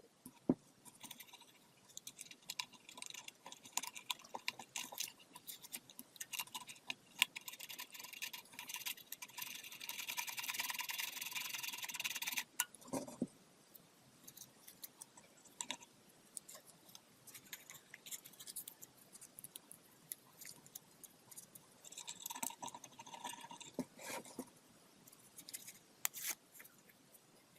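Small tool and parts handling on a workbench: scattered clicks and light knocks, with a steadier scraping, rubbing sound for about three seconds in the middle and a shorter one near the end.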